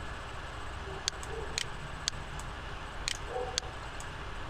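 Computer mouse clicking: four sharp clicks in two pairs, each pair about half a second apart, over a steady low hum.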